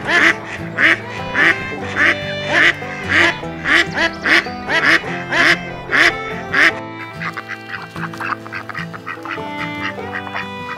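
Duck quacking in a steady run of about two quacks a second over background music; the quacks stop about two-thirds of the way through, leaving the music.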